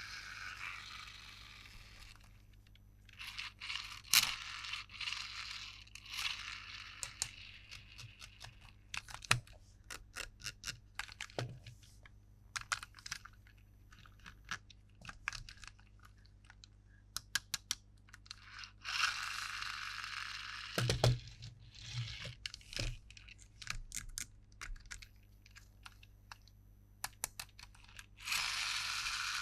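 Toy packaging and plastic toy pieces being handled: many sharp clicks and taps, with a few stretches of scraping or tearing between them.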